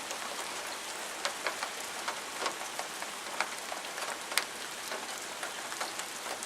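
Steady rain hiss during a thunderstorm, with single drops landing close by as frequent sharp ticks; the sharpest comes a little past the middle. No thunder is heard.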